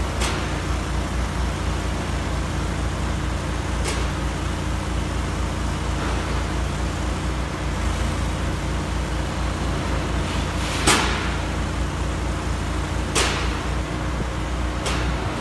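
Construction site sound: a steady low engine rumble from heavy machinery, with a few sharp bangs. The loudest bang comes about eleven seconds in and another about two seconds later.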